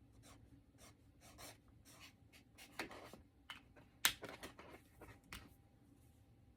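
Felt-tip marker writing on paper in a series of short, faint strokes, with one sharp click about four seconds in.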